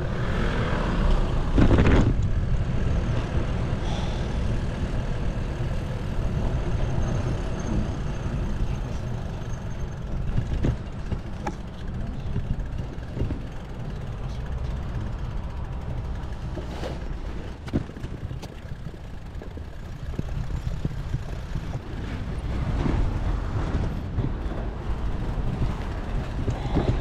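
Street traffic heard from a moving bicycle: a steady low rumble of wind and road noise, with a louder vehicle passing about a second or two in and a few sharp knocks later on.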